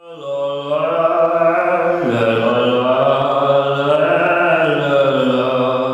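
A low, sustained sung chant with long held notes. The pitch steps down about two seconds in and then holds steady, like an added 'heavenly' vocal music cue.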